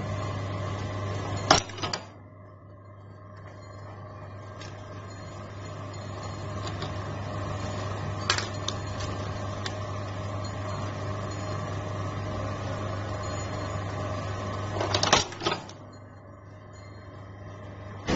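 Eyelet-setting machine humming steadily, with sharp strikes of the press: a loud one and a lighter one about a second and a half in, a single lighter strike near the middle, and a loud quick cluster of strikes near the end.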